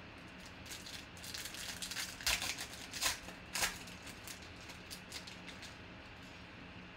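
Foil wrapper of a 2020 Panini Legacy football card pack crinkling as it is torn open and the cards are pulled out, with a few sharp, loud crackles between about two and four seconds in.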